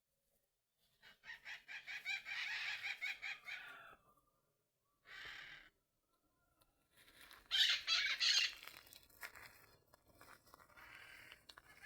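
Bird calls: a long, rapidly pulsing call about a second in, a short call near five seconds, and a loud call near eight seconds that trails off into fainter calling.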